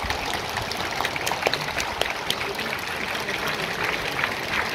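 Football stadium crowd applauding, a steady patter of many hands clapping.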